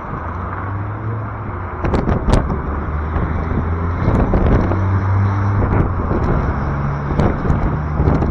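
Strong wind buffeting the microphone in a heavy, uneven low rumble, with road traffic running underneath and several sharp clicks, the loudest about two seconds in.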